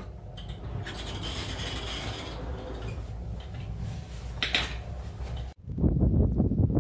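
A wooden glass-paned sliding door rattling along its track as it is pushed open, with a sharp clack about four and a half seconds in. After a sudden cut near the end, gusty wind buffets the microphone.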